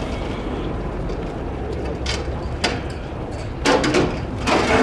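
Steady low rumble of a boat's engine with wind noise, broken by a few short, louder bursts of noise, the loudest near the end.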